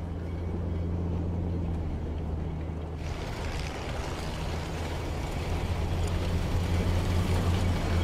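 Engine of a Spryte tracked over-snow vehicle running steadily as it drives across the ice, a low hum under the rushing of its tracks and snow, which grows louder about three seconds in.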